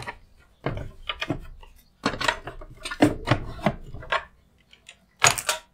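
Plastic cutting plates and an embossing folder being slid out of a hand-cranked die-cutting and embossing machine and handled, with irregular clacks and scrapes. A louder scrape comes near the end.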